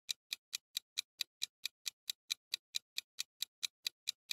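Ticking countdown-timer sound effect: evenly spaced sharp ticks, about four and a half a second.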